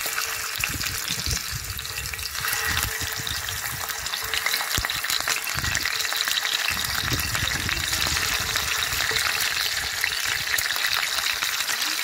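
Chicken wings frying in hot oil in a cast iron skillet: a steady crackling sizzle that grows denser a couple of seconds in as more pieces go into the oil.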